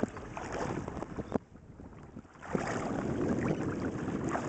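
Wind buffeting the microphone over shallow open water, with small crackles of water lapping. It drops off about a second and a half in, with a sharp click, then gusts back up about a second later.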